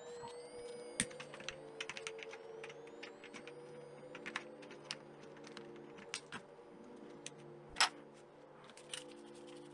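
Scattered small clicks and taps of screws and small metal carburetor parts being handled and unscrewed, the loudest near the end, over quiet, steady background music.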